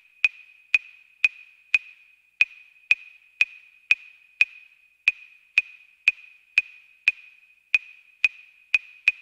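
Music intro of a hip hop track: a single woodblock-like click repeating about two times a second, always on the same high pitch, each with a short ringing tail and nothing else underneath.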